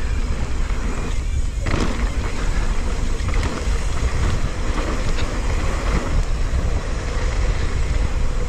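Mountain bike riding down a dirt trail, heard through a GoPro: steady wind rush and buffeting on the microphone over tyre rumble and the rattle of the bike.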